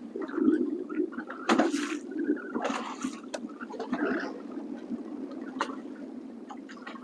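Choppy lake water lapping and slapping against a boat's hull, with a few louder slaps in the first half.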